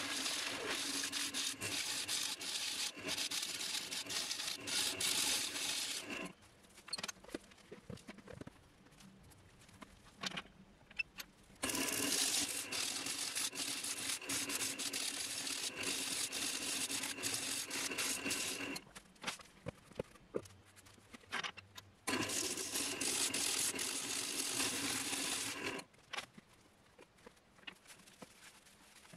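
A gouge cutting a spinning pine bowl blank on a wood lathe, in three long cuts separated by quieter pauses. Each cut is a steady rushing scrape with a faint hum under it, and there are a few light clicks in the gaps.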